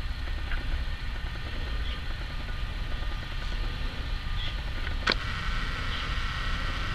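Bombardier Traxx E186 electric locomotive pulling an intermodal train slowly away from a standstill: a low rumble with a steady electric hum from its traction equipment, and a sharp click about five seconds in.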